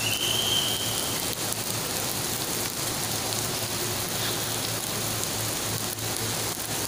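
Heavy rain falling steadily on pavement and a flooded road, an even hiss. A brief high tone sounds in the first second.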